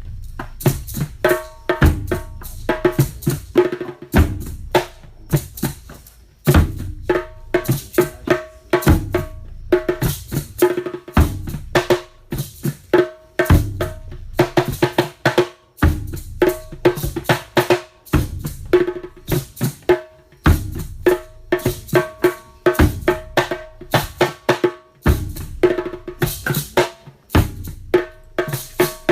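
Nyabinghi Rastafari hand drumming: quick pitched drum strokes in a steady rhythm over a deep bass-drum beat about every two seconds.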